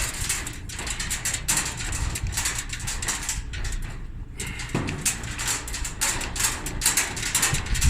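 Screws being worked out of a clothes dryer's sheet-metal panel: irregular metallic clicking, scraping and rattling of tool, screws and panel.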